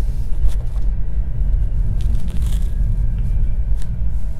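Steady low rumble inside the cabin of a Tesla Model 3 rolling slowly along, with no engine note, and a few faint clicks.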